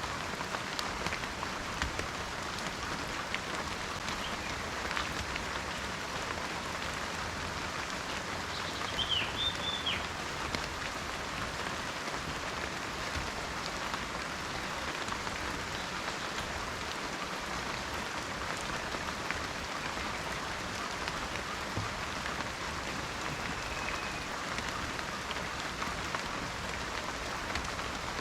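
Steady rain falling in a forest, a dense patter of drops. A bird calls briefly about nine seconds in, with a fainter call near the end.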